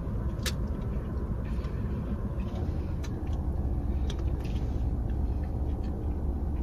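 Steady low rumble of a car heard from inside the cabin, with a few faint clicks and rustles of chewing food and a paper wrapper.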